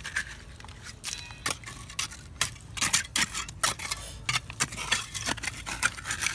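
Irregular sharp clicks and scrapes of hands digging wet soil and gravel by hand.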